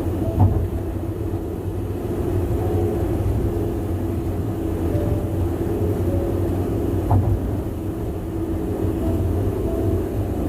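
Loud, steady tyre roar from a car driving at highway speed, with two brief thumps, about half a second in and about seven seconds in.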